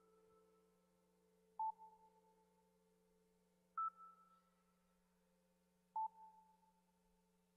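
Faint, sparse ambient music: three soft bell-like notes about two seconds apart, alternating between a lower and a higher pitch, each ringing out over a low steady drone.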